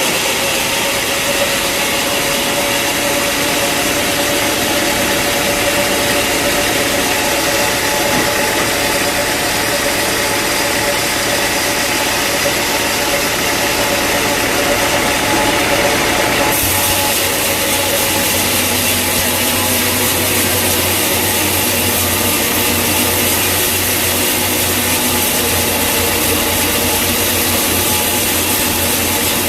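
Sawmill machinery running steadily, with sawing noise over a loud engine-like drone. A little past halfway the sound changes abruptly to a lower, heavier hum.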